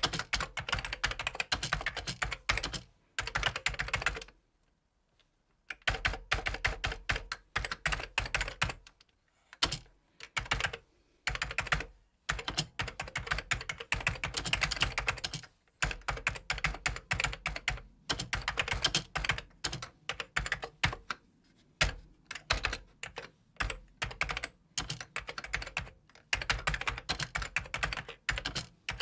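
Computer keyboard being typed on: quick runs of key clicks in bursts, broken by short pauses, the longest about four seconds in.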